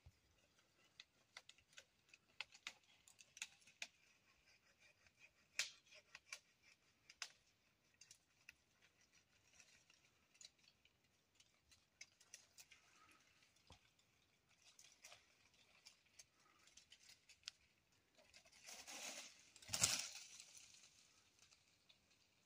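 Faint, scattered clicks and twig snaps of a walnut tree being pruned by hand up in its crown, with a louder rustle ending in a thud about three seconds before the end.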